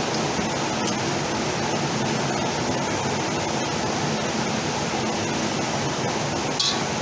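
Chopped shallots frying in hot oil, a steady sizzle. A short clink of a utensil on the pan comes near the end.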